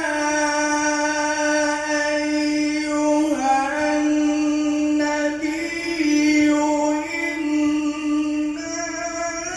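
A single unaccompanied voice in Islamic devotional chanting, holding long notes at a steady pitch, with small melodic turns about three and a half and six seconds in.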